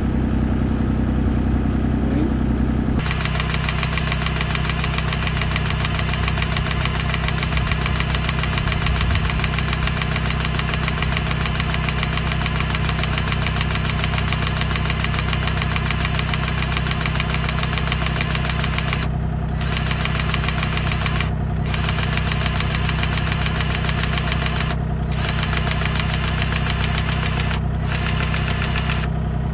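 Diesel engine of a Bobcat E32i mini excavator idling steadily.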